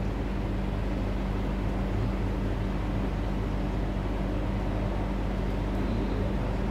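Steady low background hum with an even hiss underneath; nothing else stands out.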